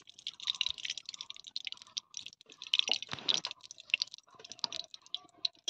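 Rapid, irregular crackling and ticking as mustard oil is poured into an aluminium kadai and starts heating over a wood-fired stove.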